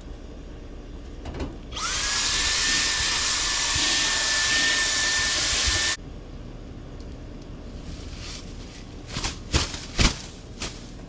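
A small motorised tool or appliance runs for about four seconds with a steady high whine over a rushing noise, then cuts off abruptly. A few sharp knocks follow near the end, one of them the loudest sound here.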